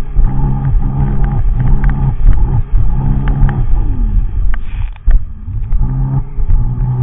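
Sea-Doo personal watercraft running at speed, its engine note pulsing up and down in quick surges, with heavy wind buffeting on the microphone. The engine sound dips briefly about five seconds in.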